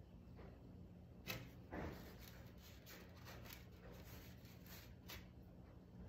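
Near silence over a low steady hum, with a few faint clicks and light scrapes, the sharpest about a second in and another near the end.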